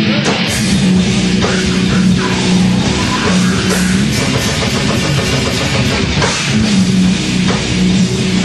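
Metal band playing live: loud distorted electric guitar and bass over a drum kit with cymbals, the drums coming in right at the start.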